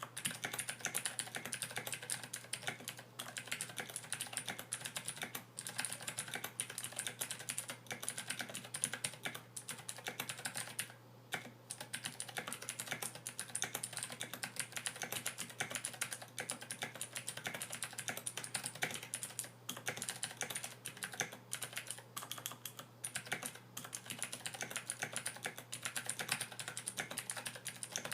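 Continuous fast typing on a Royal Kludge RK61 mechanical keyboard fitted with SA-profile PBT doubleshot keycaps, with lubed, balanced stabilizers and keycaps dampened with rubber tape. There is a short pause about eleven seconds in, and a faint steady hum runs underneath.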